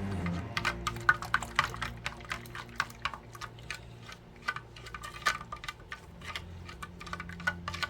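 Rapid, irregular clicking and clinking of a container of warm water being shaken to dissolve OxyClean.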